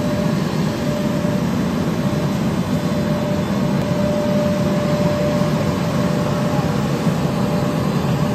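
220-model EPE foam sheet extrusion machine running in production, giving a steady low machine hum with a thin, even whine above it.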